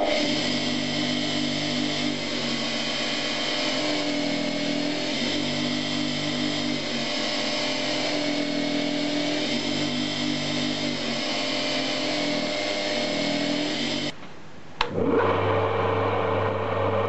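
Electric bench motor spinning an abrasive disc while a steel knife blade is held against it, with a grinding hiss; its hum shifts in pitch in steps as the pressure on the blade changes. About fourteen seconds in it cuts off, and after a short gap a motor-driven crank sanding jig runs with a steady lower hum, sliding the blade back and forth.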